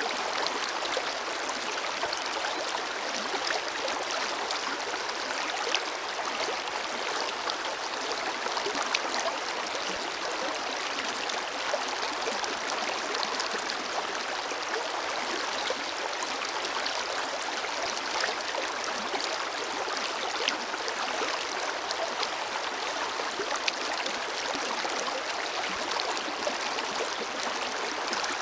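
Forest river flowing steadily over rocks: an even rushing and babbling of water with small splashes and gurgles scattered through it.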